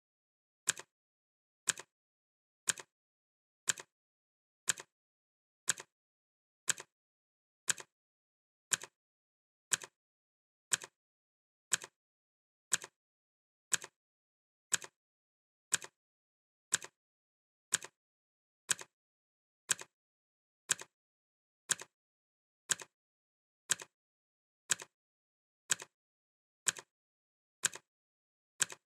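Clock ticking once a second, each tick a sharp click with a fainter second click just after it.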